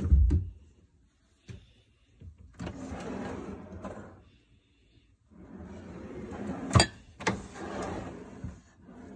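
A kitchen drawer shutting with a low thud, then two wooden roll-out shelves in a base cabinet sliding out on their runners, one after the other. The second slide has two sharp clicks in it.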